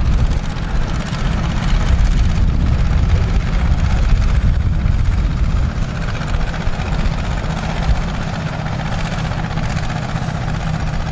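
An old tractor and the pull-type combine it pulls, running steadily through standing wheat while harvesting: a continuous deep engine drone with the combine's machinery noise over it, easing slightly in loudness about halfway through.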